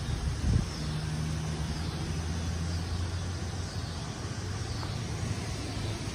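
Storm wind blowing through trees and over the microphone. A vehicle's low engine hum runs steadily through the first half.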